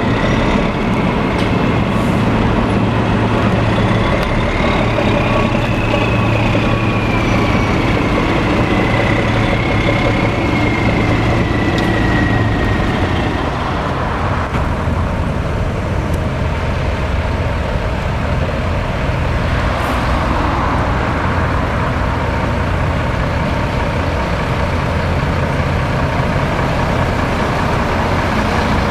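Heavy truck diesel engine running slowly through a side-exit exhaust, the DAF XF95's straight-six, while a high whine rises and then slowly falls. About halfway through the sound changes to a quieter, steady truck engine idle.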